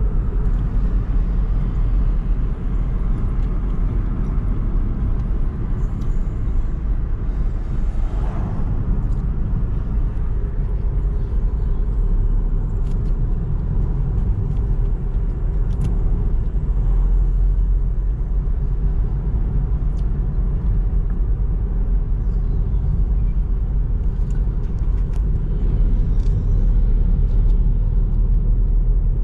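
Steady low rumble of a car driving: road and wind noise.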